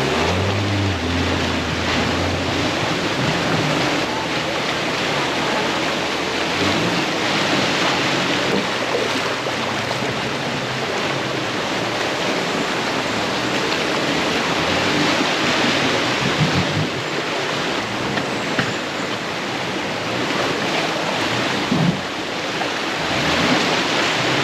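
Steady rush and splash of river water churned up by 4x4 trucks wading bumper-deep through a shallow jungle river.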